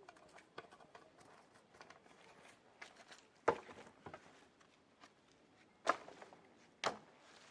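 Scattered small clicks and knocks, with three louder sharp knocks about halfway through, then twice more near the end.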